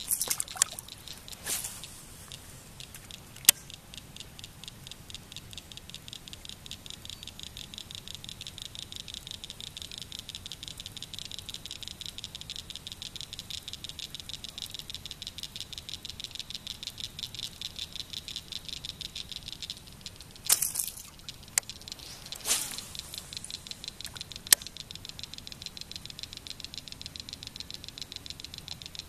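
Fishing reel being cranked steadily to retrieve a crankbait: a fast, even ticking of the reel. It breaks off about two-thirds of the way in for a couple of short swishes and sharp clicks, then the cranking starts again.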